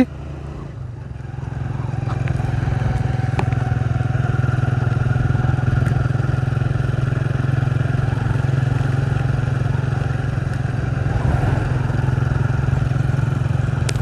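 Vehicle engine running under way at a steady pace, its low drone building up about a second in and then holding even.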